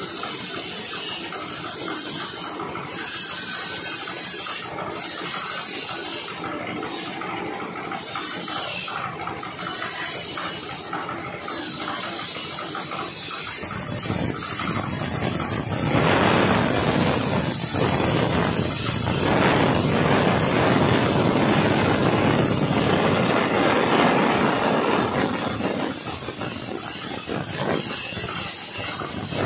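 Plasma cutter cutting carbon steel plate. A steady hiss for the first half, then about fourteen seconds in the arc strikes and a loud, harsh rushing hiss sets in as the torch cuts through the plate, growing louder about two seconds later.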